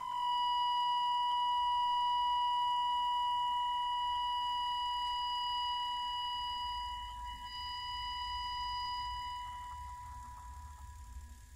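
Mechanically agitated acoustic guitar sounding a steady high ringing tone with a few overtones above it. The tone gradually fades out, its upper overtones dropping away first, as the piece dies down.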